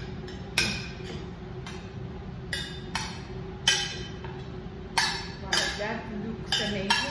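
Stainless steel skillet knocking and clinking against a blender jar as cooked shredded yam is shaken out of it: about nine sharp metallic knocks at irregular intervals.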